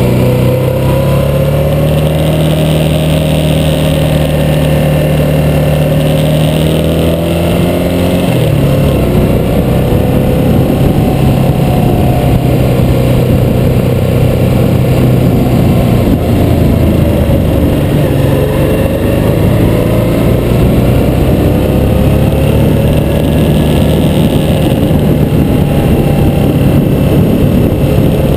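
Harley-Davidson V-twin motorcycle engine running steadily under way, its note dropping about eight seconds in and then rising and falling gently as the rider follows the road.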